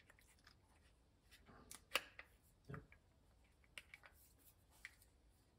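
Faint scattered clicks and taps from handling a PWK carburetor as a finger pushes its throttle slide up inside the bore, the sharpest click about two seconds in.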